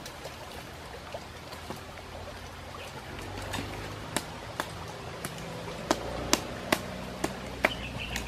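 Wood campfire crackling, with sharp irregular pops and snaps that come more often in the second half, over a steady trickling hiss.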